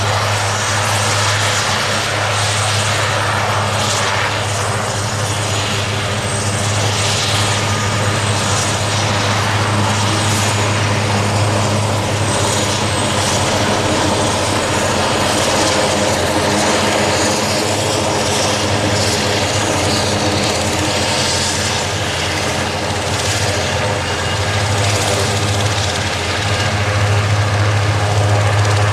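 Aerospatiale AS332L1 Super Puma helicopter running on the ground, its turbine engines and main rotor turning steadily: a loud, even low drone with a thin high whine over it, swelling slightly near the end.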